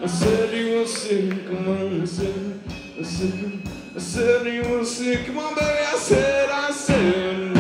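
Live rock song: a man singing over electric guitar, with a steady beat.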